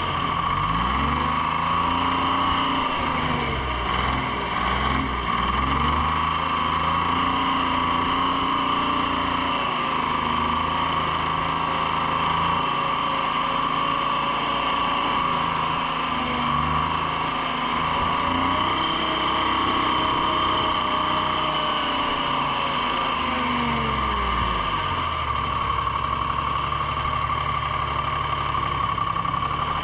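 Treefarmer log skidder's engine running as the machine is driven, its speed rising and falling several times, then settling to a steady low idle about 25 seconds in. A steady high whine sits over the engine throughout.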